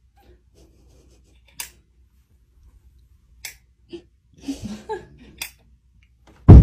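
A few sharp clicks a second or two apart, then a sudden loud, deep thud with a short ringing tail near the end: a heavy crystal cube hitting the floor after falling off a shelf.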